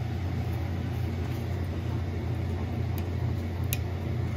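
Steady low hum of a gas boiler's hot-water circulator still running with both thermostats off, because the zone valve is stuck open and its end switch keeps the circuit closed. A couple of faint clicks come about three seconds in.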